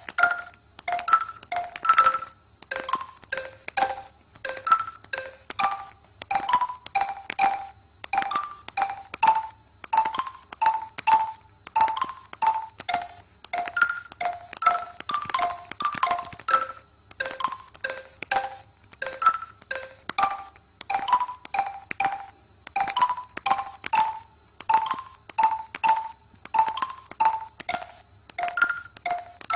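Mobile phone keypad tones: keys pressed in quick succession, each press a short beep with a click, the changing pitches making up a melody at about two to three notes a second.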